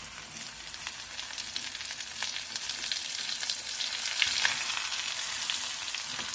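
Egg and onion pakoda batter sizzling and crackling as it shallow-fries in hot oil in a pan. The crackling grows denser and louder about halfway through.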